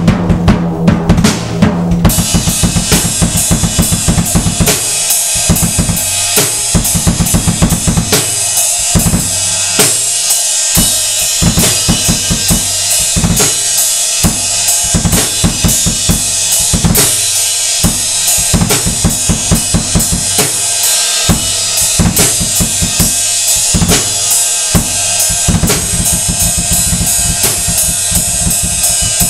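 Drum kit played without pause: about two seconds of ringing low drum strokes, then a steady beat of kick and snare under a constant cymbal wash. The bass drum has had its muffling taken out, so its strokes ring on.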